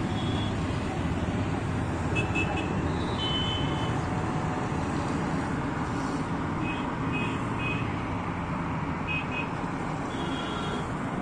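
Steady city road traffic noise, with several short high-pitched tones sounding over it now and then.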